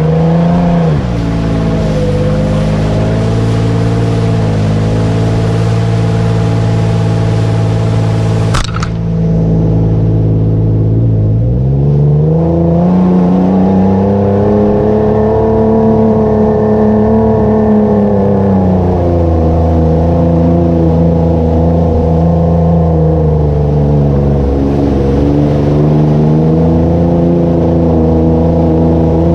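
Toyota FJ Cruiser's 4.0-litre V6 engine pulling the truck through deep mud, its note rising, holding and falling again several times as the throttle is worked. There is a sharp click about eight seconds in.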